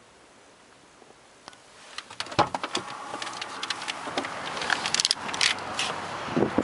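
Quiet room tone at first. From about two seconds in, a run of knocks, clicks and rustles from a hand-held camera and clothing as someone moves in a car's front passenger seat by the open door, with outdoor background noise rising behind them.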